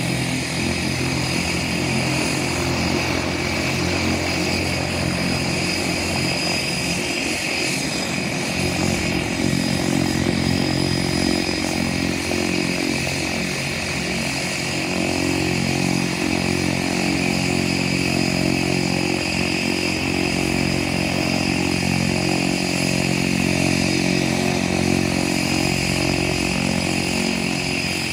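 Cessna 208 Caravan's PT6A turboprop engine running steadily on the ground: a low, even propeller drone with a steady high turbine whine above it.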